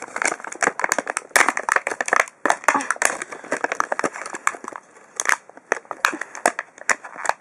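Clear plastic blister packaging crinkling and crackling as it is pried open by hand: a quick, irregular run of sharp crackles.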